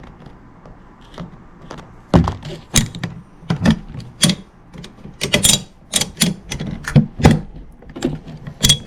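M1 Carbine's action worked back and forth by hand: a run of sharp metal clacks starting about two seconds in, spreading freshly applied grease through the bolt and receiver.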